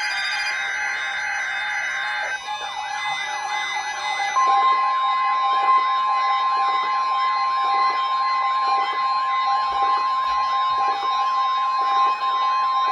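NOAA Weather Radio test signal: the shrill, raspy SAME digital data header for the first two seconds or so. Then, about four seconds in, the steady 1050 Hz warning alarm tone starts and holds for about nine seconds, marking the required weekly test.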